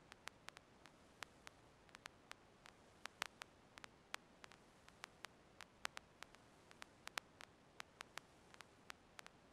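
Near silence: faint hiss of the recording itself, broken by irregular sharp clicks, about four a second.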